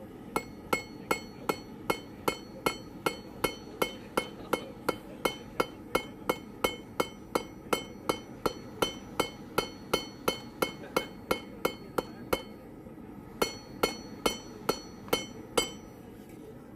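Hand hammer striking hot steel on an anvil in a steady rhythm, about three blows a second, each with a bright ringing clink, flattening the end of the bar into a flat section. The blows pause for about a second near the end, then a shorter run of blows follows.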